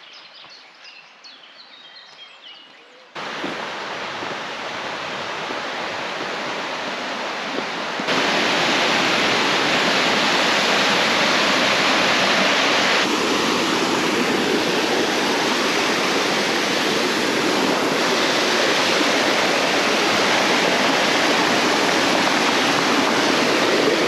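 Waterfall rushing: a steady wash of falling water that cuts in abruptly about three seconds in and jumps louder again at about eight seconds. Before it there is a quieter stretch with a few faint high chirps.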